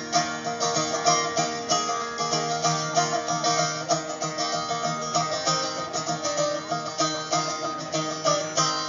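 Acoustic string instrument strummed in a steady rhythm, played live as an instrumental passage between sung lines of a song.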